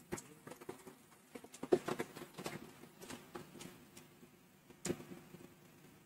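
Faint, scattered taps and small knocks at irregular intervals, the loudest about two seconds in and again near five seconds.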